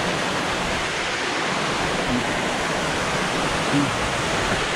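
A waterfall in a narrow rock canyon rushing steadily close to the microphone: an even, continuous rush of falling water.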